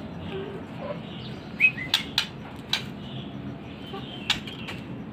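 Pet murai songbird giving a brief falling two-note chirp, with a few sharp clicks scattered through, over a steady background hiss.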